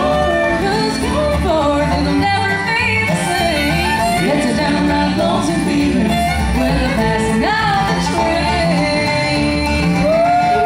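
Live bluegrass band playing, with a melody line sliding between notes over guitar and a steady bass, and a long held note near the end.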